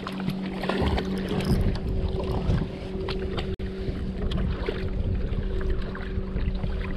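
Wind on the microphone and water splashing and lapping around a bass boat on choppy water, with small knocks and clicks, over a steady low hum. The sound drops out for an instant about halfway.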